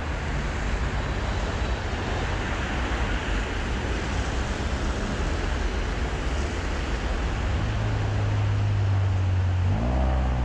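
City street traffic passing: a steady rush of tyre and engine noise with a low rumble. A low hum comes in about three quarters of the way through, and rising music tones begin near the end.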